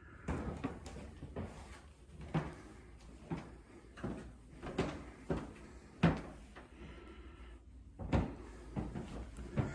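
Footsteps of someone walking, a series of short thumps every half second to a second, with a pause of about two seconds after the sixth second.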